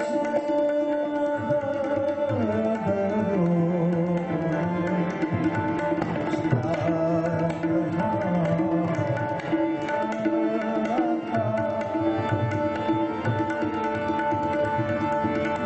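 Harmonium playing a melody over held drone notes, with a tabla pair beating a steady, busy rhythm.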